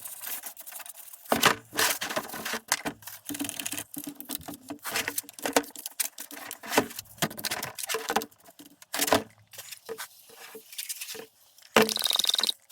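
A Poulan Pro chainsaw being scrubbed and wiped clean by hand: irregular scratchy brushing strokes and light taps on its plastic housing. Near the end there is a short, loud, steady hiss.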